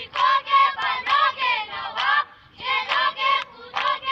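A group of children's voices in unison, chanting or singing short loud phrases together, with a brief pause about two and a half seconds in.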